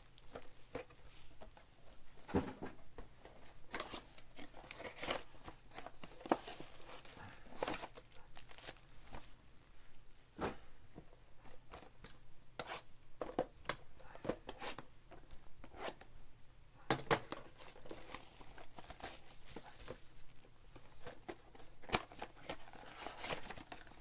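Trading-card boxes and foil card packs being handled: irregular crinkling and tearing of wrappers and cardboard, with scattered sharp clicks and knocks as the packs are pulled from the boxes.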